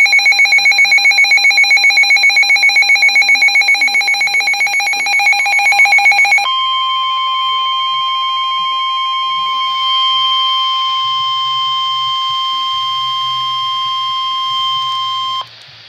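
Emergency alert tones of a broadcast flood warning: a loud electronic beep pulsing several times a second for about six seconds, then a steady single-pitched alert tone for about nine seconds that cuts off abruptly near the end.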